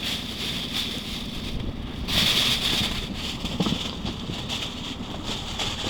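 Wind blowing over open water and buffeting the microphone, gusting louder about two seconds in.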